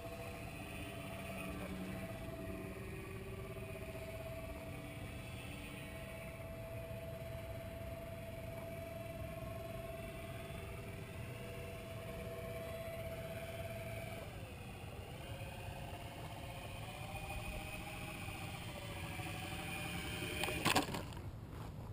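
Electric motors of an RC Magnus-effect aircraft, which drive its spinning rotor-cylinder wings and propeller, whining steadily in flight. The pitch dips and wavers about two-thirds of the way through as the throttle changes. A sharp thump near the end as the plane comes down on the grass.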